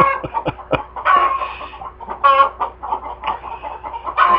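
A flock of chickens clucking and squawking: a rapid, overlapping run of short calls from several birds at once.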